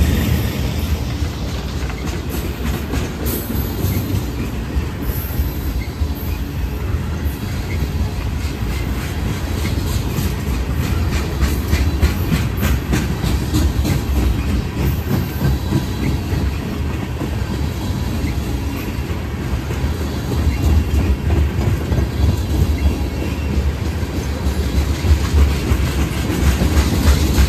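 Freight train cars rolling past with a steady low rumble, their steel wheels clicking over the rail joints.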